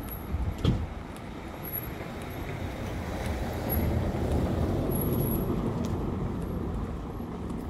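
City street noise as a car drives past close by, swelling from about three and a half seconds in and fading near the end. There is a single sharp knock just under a second in.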